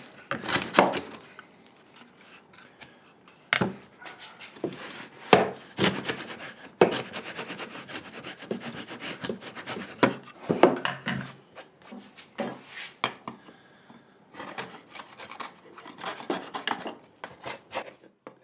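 Hand tools working wood: bursts of short scraping and rasping strokes with sharp knocks, broken by brief pauses.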